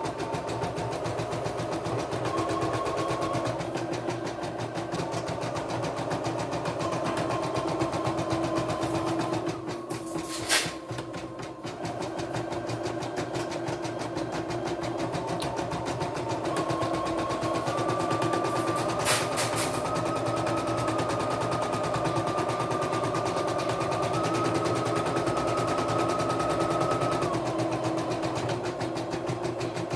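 CNY E960 computerized embroidery machine stitching a design: a fast, steady needle chatter with a whine that steps up and down in pitch. About ten seconds in it briefly slackens with a sharp click, and another click comes near the twenty-second mark.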